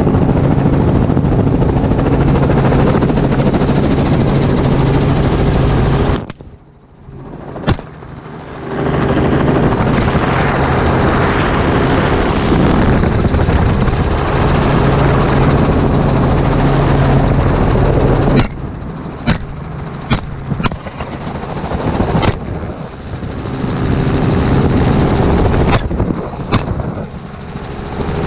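Helicopter engine and rotor running loudly and steadily, briefly falling away about six seconds in. In the last ten seconds a rifle is fired from the helicopter in a quick string of about ten shots.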